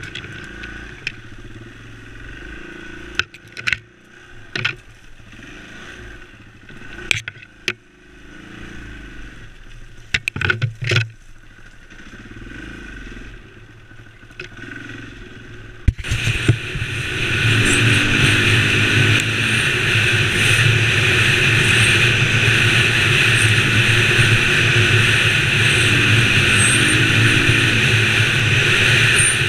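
On-board sound of a KTM LC4 single-cylinder four-stroke enduro motorcycle. For the first half it runs slowly through brush, with scattered sharp clicks and scrapes as branches strike the bike. About halfway through it switches abruptly to the engine running hard and steady at speed, much louder, with wind rushing over the microphone.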